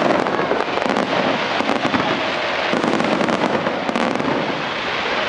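Fireworks display going off: a dense, unbroken run of crackles and pops over a continuous rushing noise.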